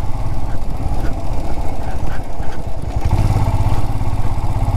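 Royal Enfield Scram 411's single-cylinder engine running under way with a fast, even pulse, its note growing stronger and fuller about three seconds in as the rider gets on the throttle.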